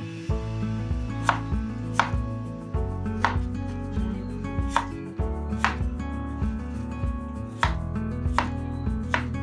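Kitchen knife cutting peeled chayote on a wooden cutting board: sharp knocks of the blade striking the board, unevenly spaced at about one a second.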